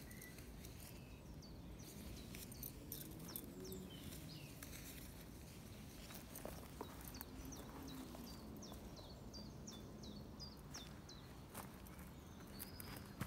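A small songbird singing runs of quick, high, down-slurred notes. Underneath, footsteps crunch and snap on dry twigs and bare earth.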